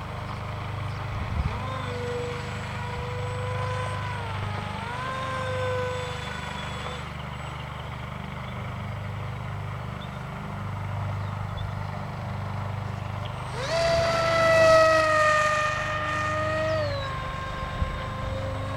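Electric motor and propeller of an AXN Floater Jet RC plane whining in flight, the pitch dipping and rising again as it flies. About three-quarters of the way through, the whine jumps higher and louder, then drops back a few seconds later, over a steady low rumble.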